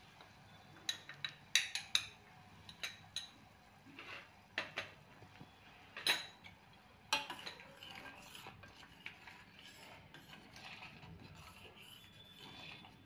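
A metal spoon clinks and taps against a cooking pot a handful of times. From about seven seconds in, it scrapes steadily around the pot as the sugar syrup is stirred.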